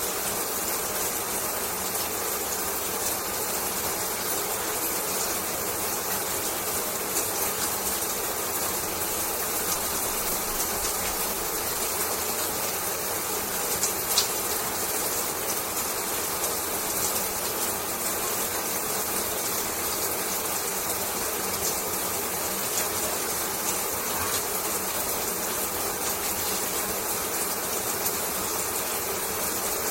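Shower water spraying steadily and splashing, a dense even hiss with faint patter, and a single sharper splash or tap about 14 seconds in.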